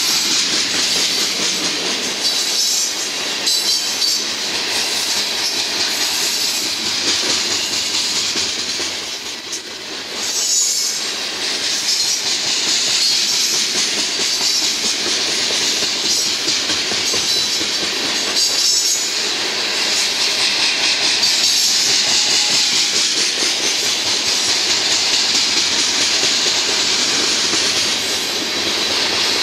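Loaded crude-oil tank cars of a freight train rolling past close by. Steel wheels clatter steadily on the rail, with a high hiss of wheel on rail and the repeated pounding of flat spots worn into some of the wheels. The sound dips briefly about nine seconds in.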